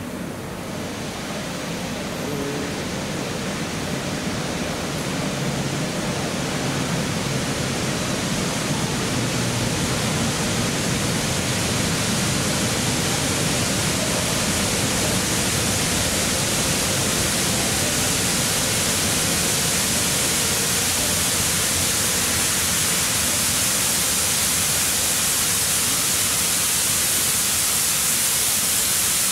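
Steady hiss of steam escaping from the Southern Railway Merchant Navy class 4-6-2 steam locomotive 35018 'British India Line' as it rolls in slowly. The hiss grows louder over the first ten seconds or so as the engine draws closer, then holds steady, with no exhaust beats.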